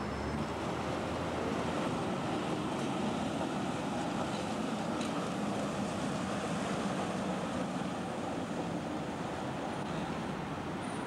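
Steady rumbling vehicle noise: a Wuppertal Schwebebahn suspension railway car running along its overhead steel girder track, blended with street traffic.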